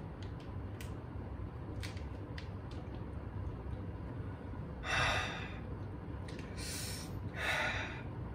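A person breathing out hard three times after gulping down a drink, short breathy puffs, the first the loudest, with a few faint clicks before them.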